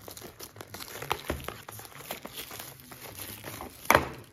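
Clear plastic shrink-wrap crinkling and crackling as it is peeled off a small cardboard chocolate box, in many irregular small crackles with one louder crackle near the end.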